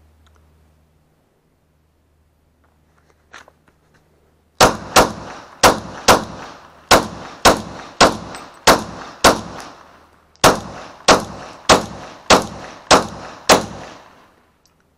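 Glock 20 10mm pistol fired fifteen times in a steady string, a shot about every half second, with a brief pause after the ninth shot. Each shot has a short ringing tail.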